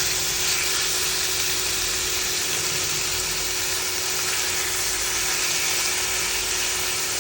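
Sliced chicken breast sizzling as it fries in hot oil in a pan: a steady, even hiss, with a faint steady hum underneath.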